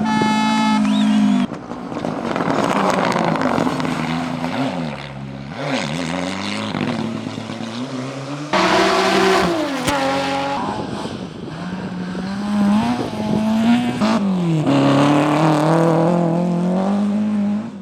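Rally car engines at high revs, the pitch climbing and dropping again and again as the cars change gear, in several separate passes with abrupt changes between them.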